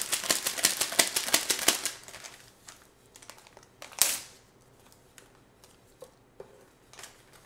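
Crinkling and rustling of a paper taco seasoning packet being picked up and opened: dense rapid crackles for about two seconds, then one loud sharp rustle about four seconds in, followed by a few faint clicks.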